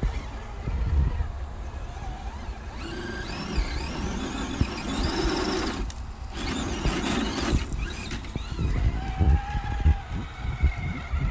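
Electric motor and gear whine of a Vanquish VS4-10 Origin RC rock crawler, rising and falling in pitch in bursts as it is throttled on and off while climbing, with a short break about six seconds in. Irregular low thumps run underneath.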